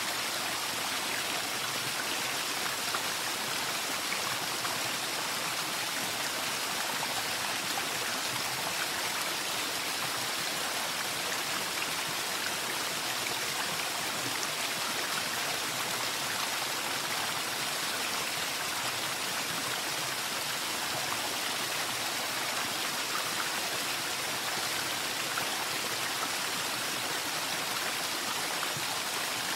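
Steady rush of running water, a constant hiss with no breaks.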